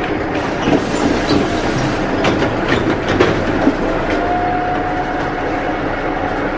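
Interior of a moving city bus: steady rumbling ride noise with the body and fittings rattling and several sharp knocks. A thin whine comes in about four seconds in and lasts a second or so.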